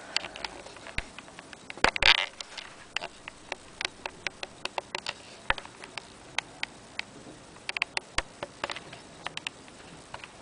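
Irregular light clicks and taps of small items being handled close to the microphone, with a louder rustle about two seconds in.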